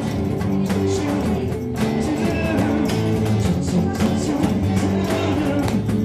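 Live band playing a song: electric and acoustic guitars over a steady beat.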